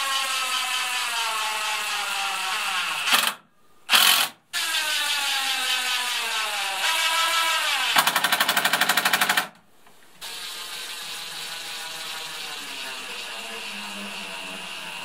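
Cordless DeWalt brushless impact driver driving screws into pine boards: the motor whines and slowly drops in pitch as the screw goes in, stops briefly with a short burst in between, and then hammers rapidly for about a second and a half as a screw seats. A quieter steady motor run follows near the end.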